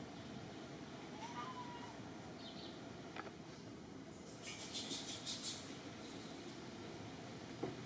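Outdoor ambience: a steady low background rush, with a brief faint call about a second in and a high, rapidly pulsing buzz for about two seconds from around four seconds in.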